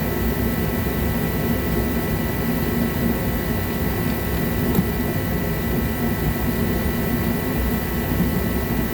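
Steady rushing background noise with a thin constant high tone, like a fan or air-handling unit running, and a single faint click about halfway through.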